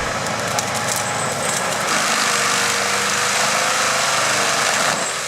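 Engine-driven stump grinder running steadily under load, its cutting wheel grinding into a wooden stump.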